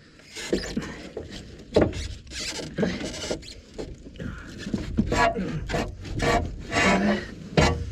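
Metal scraping, creaking and squealing as an excavator's radiator is pried and pulled free, with a couple of sharper knocks, one about two seconds in and one near the end.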